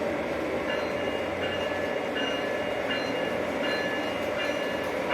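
O-gauge model train running on three-rail track, with a steady rolling hum from its motor and wheels. Short high-pitched squeaks come and go throughout.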